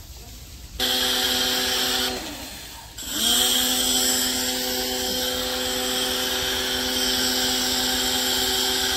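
DYLECT Ultra Flow Plus 1900 W electric pressure washer motor cutting in and out. It starts abruptly about a second in, winds down with a falling whine about two seconds in, then spins back up with a rising whine about three seconds in and runs steadily with a hiss. The stop-start follows the spray-gun trigger being released and squeezed.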